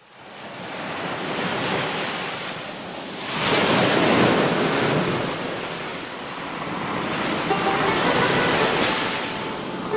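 Ocean surf: waves breaking and washing up the shore, rising and falling in swells, loudest about four seconds in.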